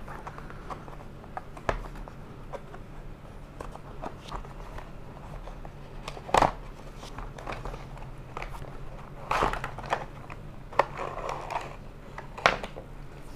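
Cardboard packaging of a bicycle light handled and opened by hand: scattered taps, scrapes and crinkles of the paperboard box and its card insert, with three sharper knocks spread through, over a faint steady low hum.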